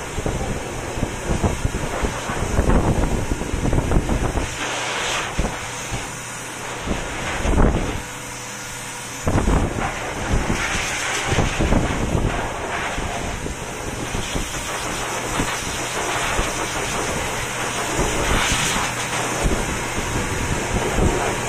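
Pet grooming blow dryer running, its air rushing loudly and buffeting the microphone in uneven gusts, easing briefly about eight seconds in.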